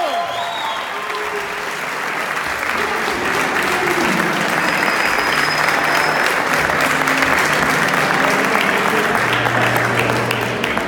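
Small crowd clapping and applauding, a dense patter of hand claps.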